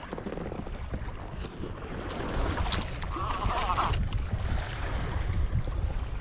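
Wind on the microphone and water moving around a kayak at sea, a steady low rumble, with a brief higher-pitched sound about three seconds in.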